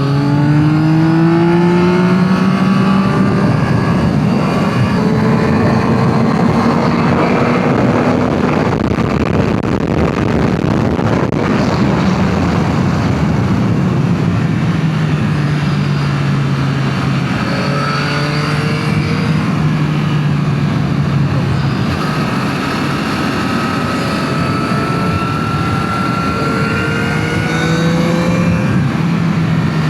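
Yamaha MT-09 SP's 890 cc inline-three engine through its stock exhaust, under way: its pitch climbs over the first few seconds, then holds and eases and climbs again as the throttle changes. A steady rushing noise runs beneath the engine.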